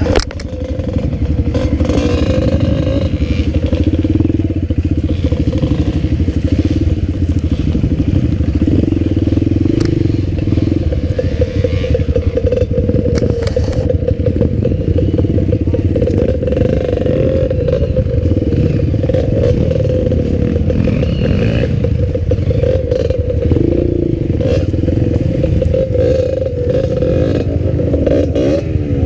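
Motorcycle engine running steadily while riding, with frequent short knocks and clatter from the bike going over rough trail.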